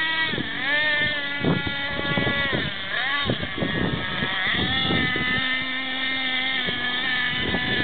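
Thunder Tiger MTA-4 radio-controlled nitro monster truck's small glow engine revving up and dropping back several times, its pitch rising and falling with the throttle as the truck climbs a gravel slope.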